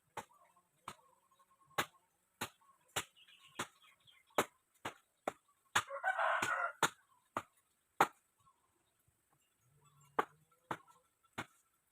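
Sharp knocks repeating roughly every half second, like steady hammering or chopping, with a rooster crowing once about six seconds in.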